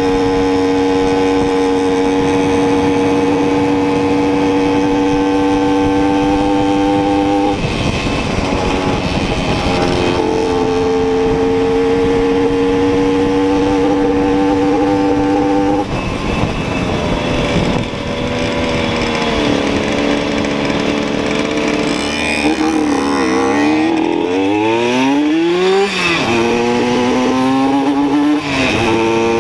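Simson two-stroke moped engine running hard at high revs while riding, its pitch held steady and dropping briefly at gear changes, then falling and climbing again near the end. Wind rushes over the microphone.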